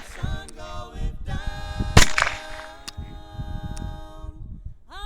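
RG-10 .22 Short revolver firing a single shot about two seconds in, cocked and fired single action with old Remington high-speed .22 Short rounds. A couple of faint clicks follow.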